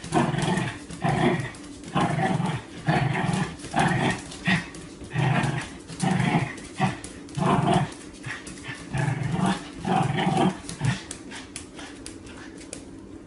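Dog making short, repeated growls, about one and a half a second, while spinning after its own tail. The growls stop about eleven seconds in.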